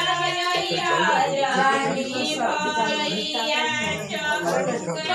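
Several women's voices singing together without instruments, a group folk song sung in unison.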